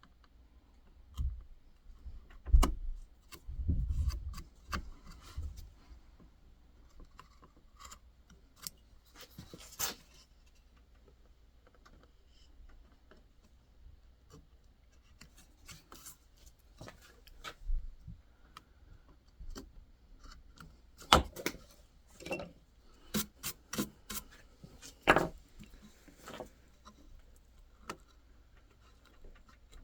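Hand carving tools cutting and scraping white birch in short, irregular strokes, with scattered clicks and a few louder knocks.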